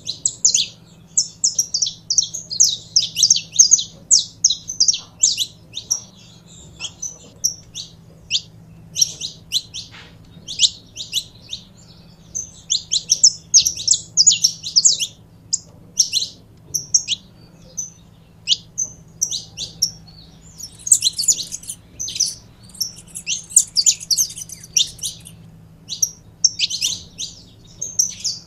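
Saffron finches calling: a rapid, continuous series of short, high, sharp chips and twittering phrases, which grows busier and denser about two-thirds of the way through.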